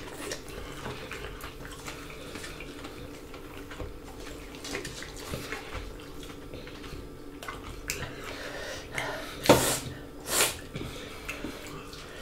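Close-miked eating sounds of people eating rice and food with their hands: wet chewing and mouth noises, with small clicks and scrapes of fingers on plates. Near the end come two louder short hissing sounds about a second apart, over a faint steady hum.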